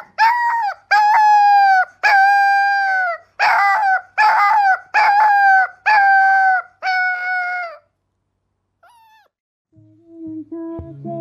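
Husky-type puppy howling: a run of about eight short, high howls, each held for under a second and several dropping in pitch at the end. They stop about eight seconds in.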